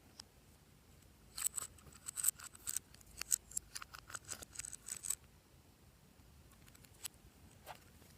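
Glossy slime being worked by hand, giving a quick run of sharp clicks and pops for about four seconds, then two single clicks near the end.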